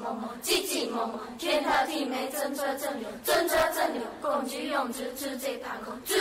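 A chorus of women's voices reciting verse in unison in Hakka, chanted in short rhythmic phrases.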